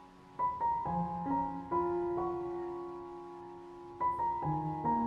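Soft background piano music: a slow run of single notes and chords that fade after each strike, starting about half a second in and again about four seconds in.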